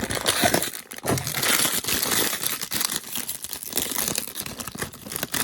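Blind-box packaging crinkling, crackling and tearing as it is opened by hand.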